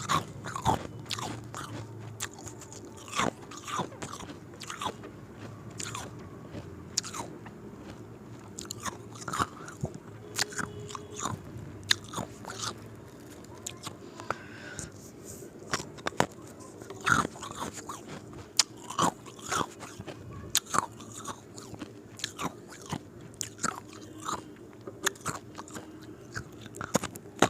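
Ice cubes being bitten and chewed, with many sharp, irregular crunches and cracks.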